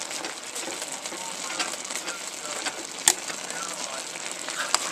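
Ground beef and onions sizzling and crackling as they brown in a pot, with scraping and clicking from a spatula breaking up the meat. A sharp knock comes about three seconds in and another near the end.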